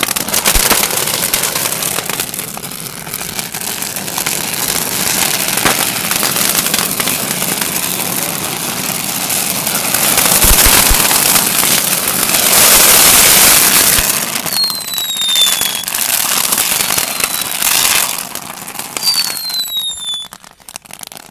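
A mass of small Category 1 consumer fireworks going off together: a loud, dense crackling of many rapid pops that swells in the middle. Several falling whistles sound in the second half, and the crackling dies down near the end.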